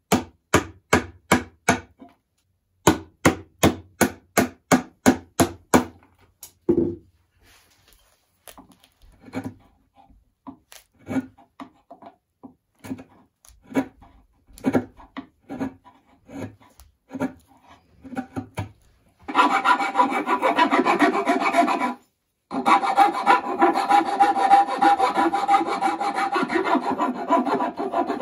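Hand tools cutting into the hardwood block of a banjo neck heel. First comes a run of sharp, evenly spaced knocks about three a second, then scattered chisel cuts. From about two-thirds of the way in, a farrier's rasp files the wood with a continuous scraping, broken once briefly.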